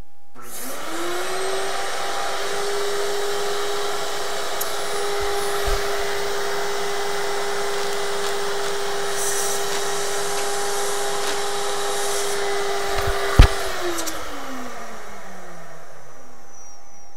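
A vacuum motor starts with a rising whine and runs steadily, drawing helium out of a plastic bag through a hose to thin the helium layer over a loudspeaker. About thirteen seconds in it is switched off with a sharp click and winds down with a falling whine.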